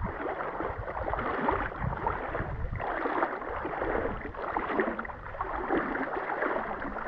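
Muffled water sloshing and gurgling in shallow river water, in irregular surges about every second. A low rumble runs under it for about the first three seconds.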